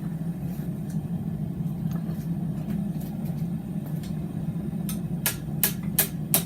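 A steady low rumble, then hand-hammer blows on a hot mild-steel bar on the anvil. The blows begin about five seconds in, roughly three a second, as the bend is adjusted.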